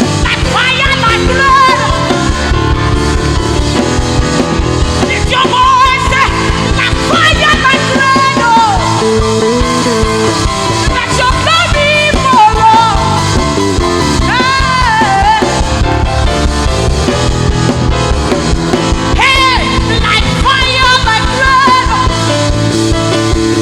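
Live gospel worship music: a band plays a steady beat with bass and drums while a lead voice sings long, wavering melodic lines.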